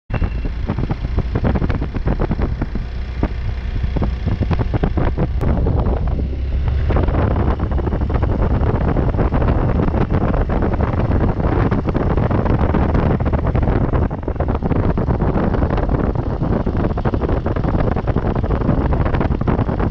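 Motorcycle ridden on a rough mountain road, heard from the rider's position: wind buffeting the microphone over the engine's low rumble, with many short knocks from the bumpy surface.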